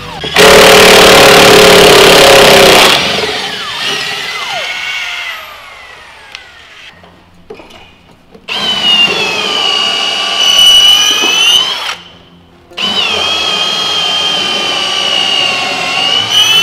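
Cordless drill boring into a Douglas fir boat frame. A loud burst of drilling comes first and the motor's whine winds down in pitch; later come two long runs of a steady high motor whine, a few seconds each, as the bit bores into the wood.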